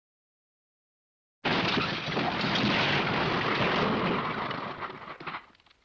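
The MGM "Elephant Smash" cartoon crash sound effect: a sudden loud crashing rumble that starts about a second and a half in, runs for about four seconds and tails off near the end.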